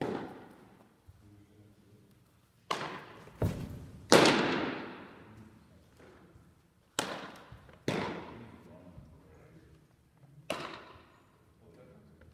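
Baseballs popping into leather catcher's mitts during pitching practice. Seven sharp smacks, each echoing off the gymnasium walls, the loudest about four seconds in.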